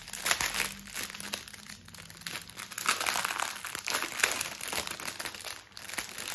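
Plastic packaging crinkling and crackling as small clear bags of diamond-painting drills are handled, with irregular crackles throughout that are busiest around the middle.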